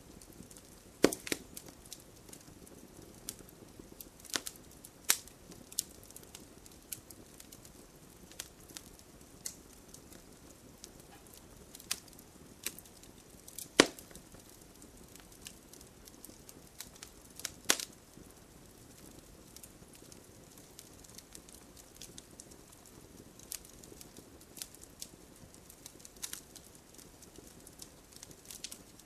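Wood fire crackling, with sharp pops at uneven intervals over a low, steady hiss of burning, a few louder snaps standing out.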